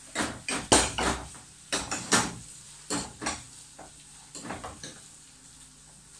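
Cookware clatter: a glass pan lid set down on a gas stove's metal grate and a wooden spatula knocking and scraping around a frying pan. About a dozen sharp knocks over the first five seconds, the loudest about a second and two seconds in, tapering off near the end.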